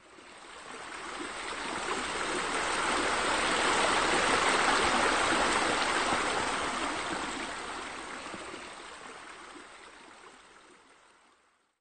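Water pouring from pool sheer waterfalls into the pool, a steady flowing sound that fades in, is loudest about halfway through, and fades away again.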